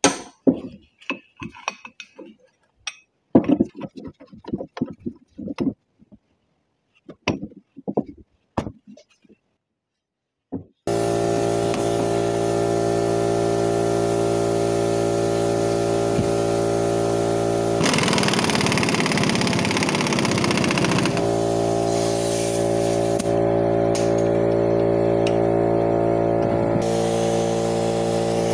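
Scattered clicks and metal knocks from a screw-type C-frame press being turned down on a U-joint cap held in a vise. About eleven seconds in, a loud steady hum made of several fixed tones starts abruptly and keeps going.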